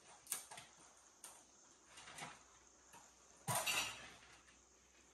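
Hard household objects being handled and taken down from a wall: a few small knocks and clinks, then a louder clatter about three and a half seconds in.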